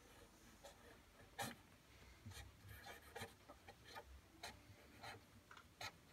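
White marker drawing on a dark wooden counter panel: faint, irregular short scratching strokes and taps of the tip on the wood, the loudest about a second and a half in.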